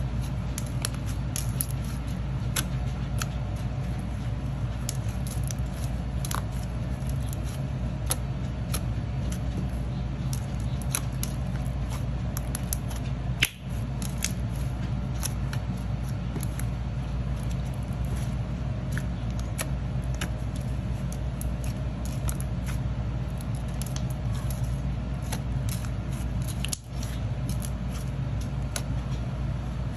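Pink slime being kneaded, pressed and poked by hand on a wooden table, giving many small scattered clicks and pops, over a steady low hum.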